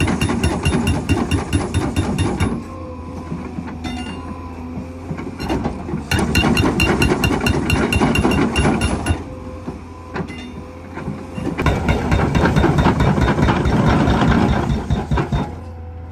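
Epiroc HB 10000 hydraulic breaker on a Cat 385C excavator hammering into frozen ground, a fast run of heavy blows in three bouts with short pauses between, during which the excavator's diesel engine and hydraulics run at a steady hum.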